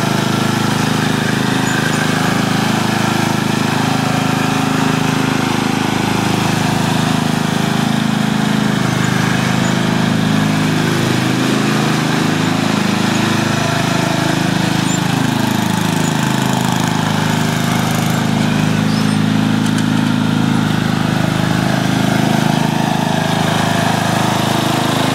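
The 12-horsepower Briggs & Stratton engine of a 1997 KGro PowerPro riding lawn tractor running steadily while the tractor is driven, its note rising and falling slightly now and then.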